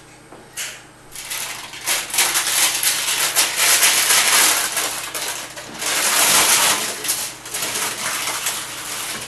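Baking paper crinkling and rustling as it is handled and folded on a metal baking tray: a dense, crackly rustle that starts about a second in and goes on with little pause.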